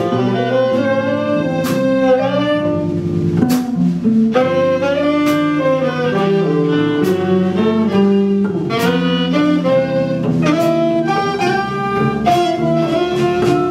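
Small live jazz band playing, with the saxophone out front over violin, electric guitar, electric bass and a drum kit keeping time with regular cymbal and drum strikes.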